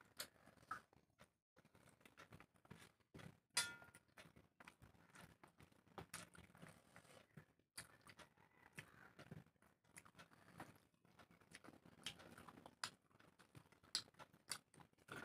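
Faint close-up eating by hand: wet chewing and lip smacks, with fingers mixing rice and curry on steel plates. One sharper click with a short metallic ring comes about three and a half seconds in.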